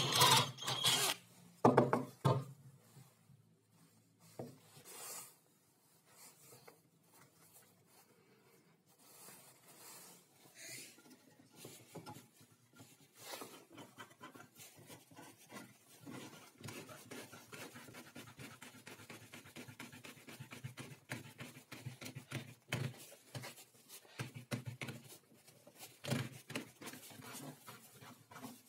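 A drill boring through a small wooden star knob in two short loud bursts near the start, then a long stretch of light wooden rubbing and clicking as wooden knobs are turned on a threaded rod and the wooden stop block is handled.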